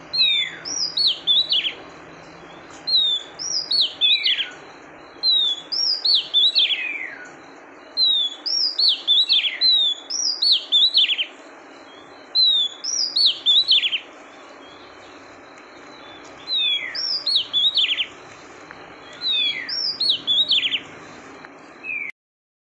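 Female oriental magpie-robin calling in short phrases of sharp, down-slurred whistles, repeated every two to three seconds over a steady hiss. These are the female calls played to stir males into response. The recording cuts off suddenly near the end.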